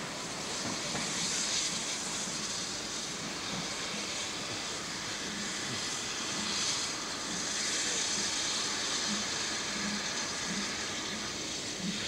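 Steam-hauled train of coaches moving out: a steady hiss of steam, swelling twice, over the faint regular beat of the coaches rolling on the track.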